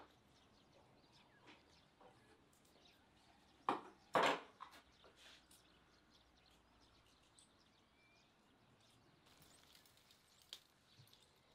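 Two sharp knocks about half a second apart, from things being handled on a wooden prep table, with a few small handling clicks. Faint bird chirps sound over a quiet background.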